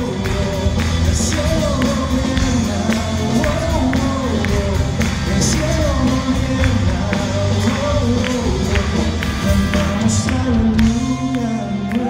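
Live church band playing a song: a drum kit keeps a steady beat with three cymbal crashes, over electric bass, electric and acoustic guitars and a singing voice.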